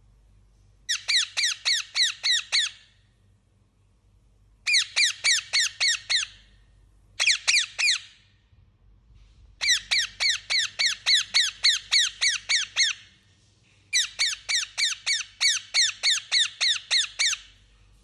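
Indian ringneck parakeet calling in five bursts of rapid, high-pitched repeated notes, about four a second, each note dropping in pitch. Some bursts last well over a second, one is only three notes.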